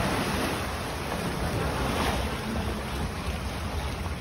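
Water rushing and splashing around a log-flume ride boat as it floats along the flume channel, with a water jet spraying beside it. The noise is steady, with a little wind buffeting on the microphone.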